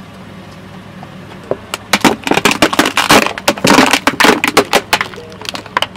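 Plastic washbasins cracking and splitting under a car tyre: a dense run of sharp cracks and snaps starting a little under two seconds in and thinning out near the end, over a low steady hum from the car.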